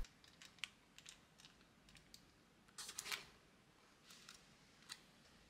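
Near silence, broken by a few faint clicks and light handling noises as a paper-lined metal cake tin is picked up, with the loudest little cluster about three seconds in.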